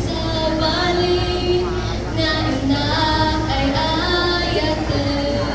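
A high voice singing a melody with vibrato over musical accompaniment.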